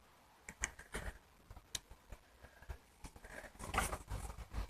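Faint scattered clicks and small handling noises of a nail varnish bottle as its stuck cap is twisted and does not open.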